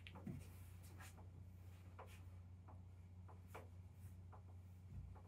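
Faint, irregular scratching and rustling of cats' paws and claws on a cardboard box as two Norwegian Forest Cats wrestle on it.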